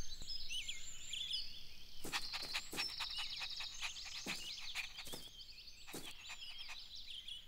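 Garden ambience of small birds chirping and twittering, with light taps roughly every half second to second from about two seconds in.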